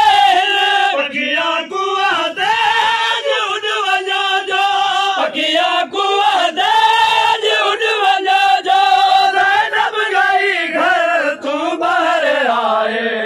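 Men chanting a noha, a Shia mourning lament, together with a lead reciter on a microphone, the chant going on without a break. Chest-beating (matam) slaps sound in time with it.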